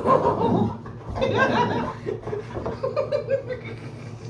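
Laughter: several bursts of chuckling, one near the start, a louder one about a second and a half in, and a shorter run of quick laughs around three seconds in.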